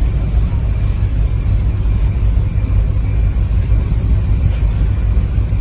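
A boat engine running with a steady low rumble, mixed with wash and wind noise on the river.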